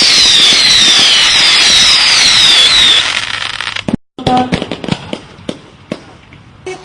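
Fireworks: a loud hiss carrying a string of falling whistles, one after another, that cuts off about three seconds in. After a brief gap come scattered sharp cracks and pops.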